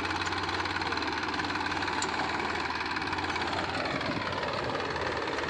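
Massey Ferguson 245 tractor's three-cylinder diesel engine running steadily under load as its rear blade digs through hard-packed soil. Its note sags a little about three to four seconds in.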